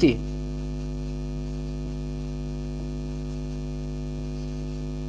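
Steady electrical mains hum, a constant low buzz with many evenly spaced overtones, running unchanged under the pause in speech.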